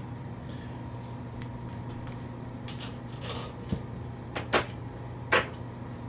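A handful of short clicks and rustles, mostly in the second half, over a steady low hum.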